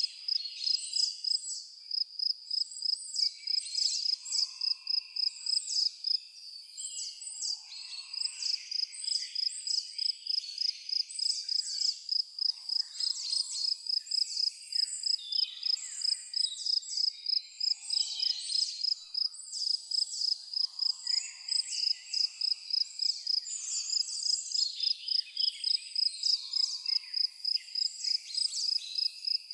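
Cricket chirping in a steady, even rhythm of about three high chirps a second, with birds calling and singing over it.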